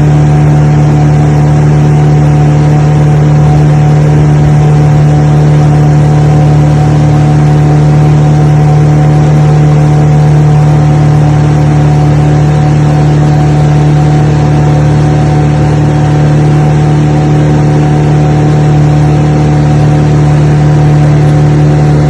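An engine running loud and close at a constant speed, with a steady, unchanging drone.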